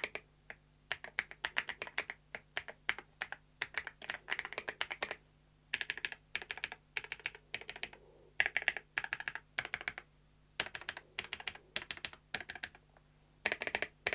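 Typing on a FEKER IK85 Plus gasket-mounted mechanical keyboard with Mulan switches: quick runs of key clicks in bursts with short pauses. The sound is fairly dampened, which comes from the gasket mounting.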